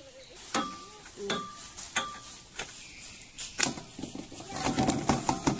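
A few sharp knocks, some followed by a short metallic ring. Then, near the end, a stainless steel bowl clatters and clinks as the java plums and plastic water bottle in it are handled.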